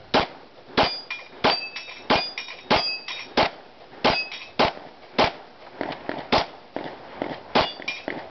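A string of about eleven Glock pistol shots fired at a steady pace, roughly one every 0.6 seconds, with the high metallic ring of hit steel plates after many of them. A few fainter shots come in the later part.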